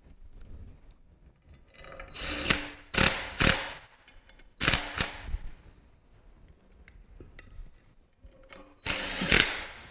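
Cordless drill-driver spinning in short bursts as it runs bolts into a pump's end plate. There are several quick runs between about two and five seconds in and another near the end.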